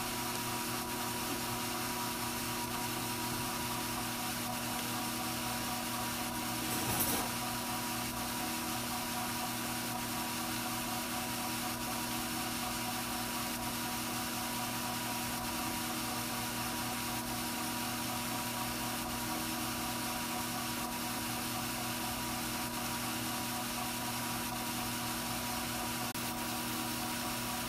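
Strauch Mad Batt'r electric drum carder running steadily, its motor giving an even hum with a faint whine. About seven seconds in there is a brief scratchy noise.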